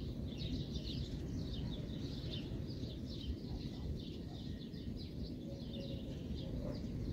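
Small birds chirping continuously, many short high calls overlapping, over a steady low background rumble.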